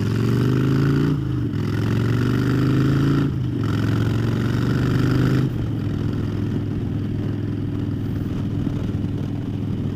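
2009 Harley-Davidson Dyna Fat Bob's Twin Cam 96 V-twin, through Vance & Hines Short Shots pipes, accelerating in rising pulls with two brief breaks for gear shifts, about one and a half and three and a half seconds in. A little past halfway it settles to a steady cruise.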